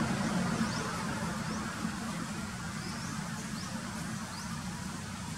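Steady rumble of road traffic, fading over the first couple of seconds as a vehicle passes, with a scatter of faint short high chirps over it.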